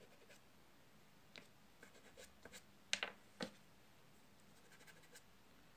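Faint, short scratching strokes of a soft pastel stick on rough Fabriano paper, two of them sharper a little after three seconds in.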